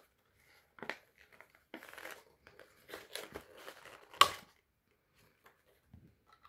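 Handling of a plastic security camera and its cable: several short bursts of plastic rustling and crinkling, with a sharp click about four seconds in.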